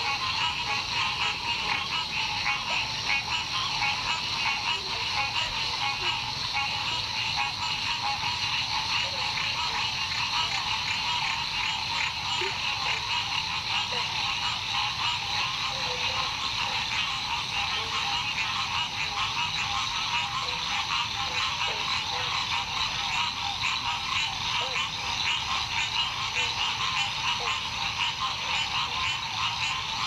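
Dense, steady chorus of frogs, many rapid trilling calls overlapping without a break.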